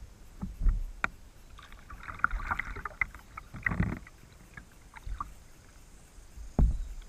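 Kayak paddle strokes: about five dull thumps roughly a second and a half apart, with water splashing and dripping off the paddle blades in between.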